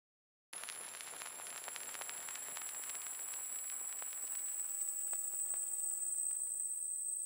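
Crackling, fizzing sound-effect texture like rain or sparks: many fine clicks over a faint high steady whine. It starts abruptly about half a second in and grows slowly louder.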